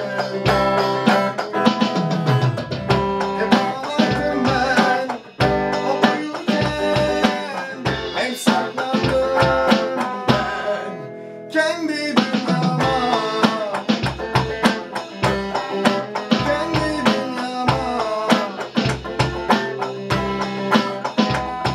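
An electric guitar plays a melodic line over an electronic drum kit's steady beat. The music thins out briefly about eleven seconds in, then the full band comes back in.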